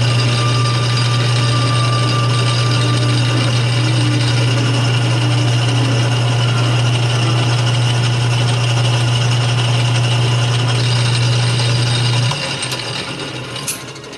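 Atlas 6 lathe running, with a loud steady motor hum under a dense mechanical hash. The hum stops abruptly about twelve seconds in and the remaining noise fades away.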